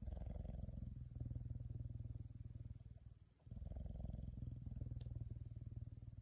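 Caracal purring steadily, up close, while suckling on a person's thumb. The purr runs in two long stretches with a short break a little past halfway, and there is a small click about five seconds in.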